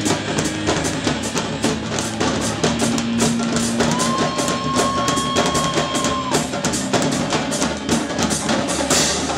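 Marching drumline playing: snare drums and bass drums in fast, dense patterns with cymbals.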